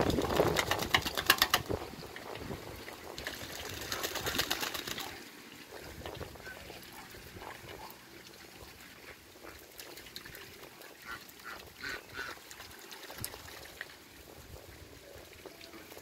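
Muscovy and other ducks bathing in a metal basin of water: loud splashing and rapid flapping in the first second and a half and again around four seconds in, then softer splashing and dabbling with a few short duck calls.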